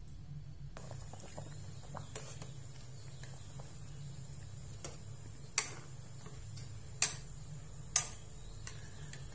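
Metal spatula stirring broth in a metal wok and knocking against its side. It gives a few light clicks, then three sharp clinks in the second half, over a steady low hum.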